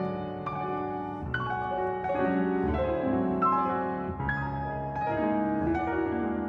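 Solo grand piano playing classical music: chords and notes struck about once or twice a second, each ringing on under the next.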